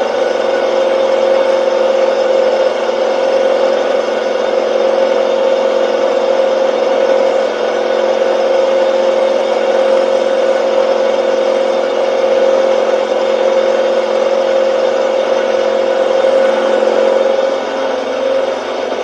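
Milling machine side-milling a metal block with an end mill: a steady pitched whine over a continuous rushing cutting noise, easing briefly near the end.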